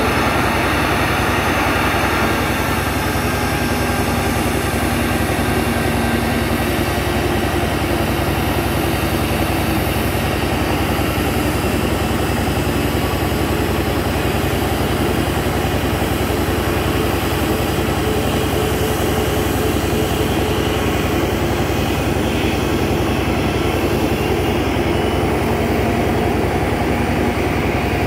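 Boeing 737 jet airliner taxiing, its two jet engines running steadily at low taxi power.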